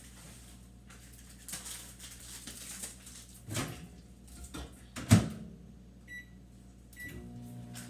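Microwave oven being set going: knocks as the popcorn goes in and the door shuts with a loud thump about five seconds in, two short keypad beeps, then the oven starts running with a steady hum near the end.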